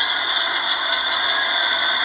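Steady high whirring machinery noise with a light rattle, from an excavator working on a site.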